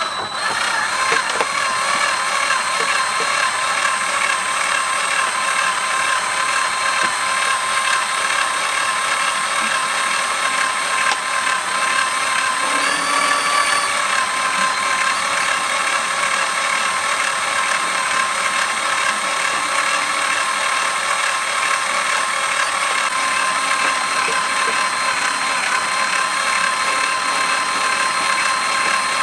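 Cordless drill running steadily at low speed, a 3.2 mm cobalt bit boring into a snapped engine head bolt without cutting fluid; a steady motor whine.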